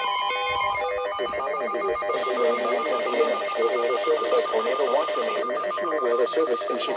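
Electronic emergency alert tones: a quick run of beeps at changing pitches, giving way about a second in to a steadily pulsing beep over a busier wavering sound.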